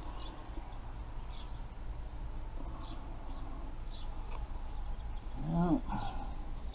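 Faint short bird chirps repeating over a steady low background rumble. Near the end comes a brief low vocal sound from a man that rises and falls in pitch.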